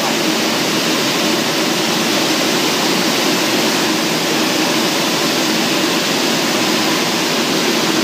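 Bubble washing machine for dates running: a steady rushing of churning water and air, with a low hum underneath.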